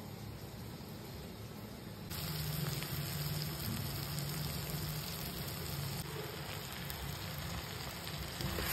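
Soya chunks and vegetables sizzling in a hot pan, a steady hiss that gets louder about two seconds in.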